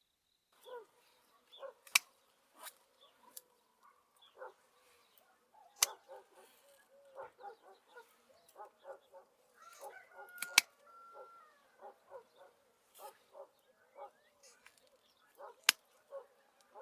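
Domestic fowl calling over and over in short, quick calls, with four sharp clicks or knocks that are the loudest sounds.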